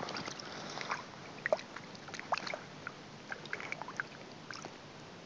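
Water dripping and lightly splashing in short, irregular plops, with a few soft clicks.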